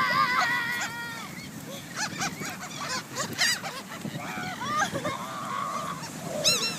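Seagulls calling: one long wavering call at the start, then a run of short squawks rising and falling in pitch, with a louder one near the end.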